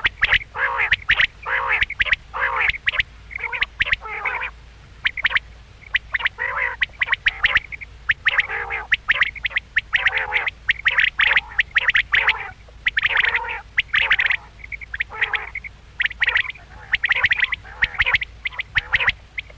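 Quail calling over and over: short, harsh, pitched notes in quick clusters, with brief pauses between runs.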